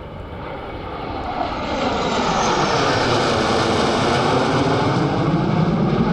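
A formation of six jet fighters flying past low: the jet roar builds over the first two seconds to a loud, steady peak as they pass overhead, with a sweeping fall in pitch.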